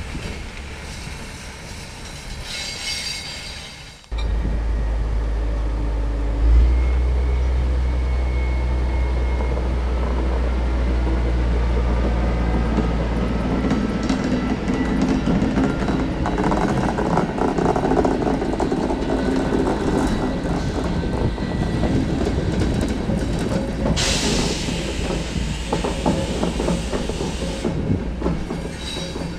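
Diesel shunting locomotive running, at first with a steady low engine drone, then rising in pitch as it moves an electric locomotive slowly through the yard. Wheels clatter over rail joints and points, with some wheel squeal, and a few seconds of hiss come near the end.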